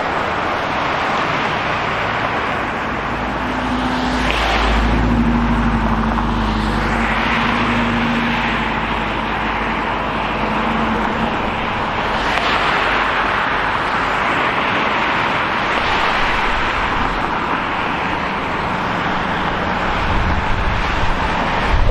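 City street traffic: cars passing one after another in a steady wash of tyre and engine noise. About four seconds in, a deeper engine rumble comes in and lasts a few seconds.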